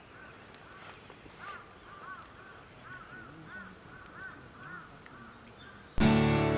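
A bird calling outdoors: a run of short, repeated arched calls, about two or three a second. Music starts abruptly near the end.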